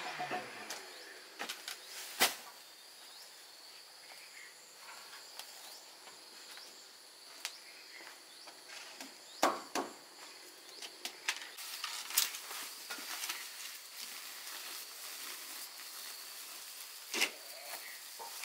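Insects chirring steadily at a high pitch, with scattered sharp taps and knocks.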